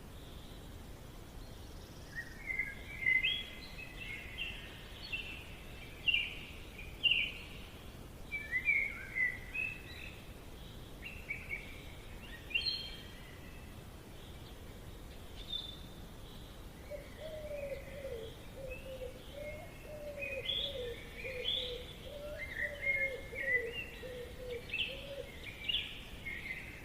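Forest ambience: songbirds singing in short, chirpy phrases over a steady low background noise. A lower, wavering run of rapid notes joins about two-thirds of the way in.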